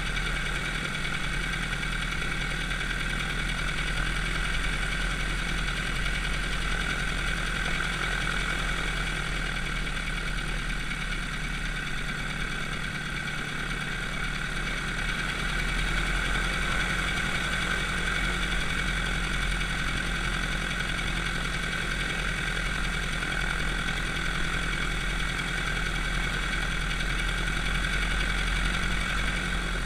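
Aircraft piston engine running steadily at low power on the ground, with an even, unchanging pitch.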